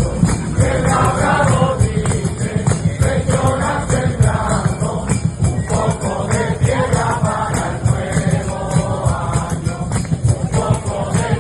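A group of voices singing a Christmas carol together, over shaken tambourine jingles and a steady low rhythmic beat.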